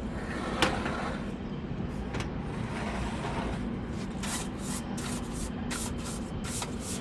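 Cloth rag wiping the outside of a desktop PC case, in short repeated rubbing strokes, a few a second, that begin about four seconds in, over a steady low hum.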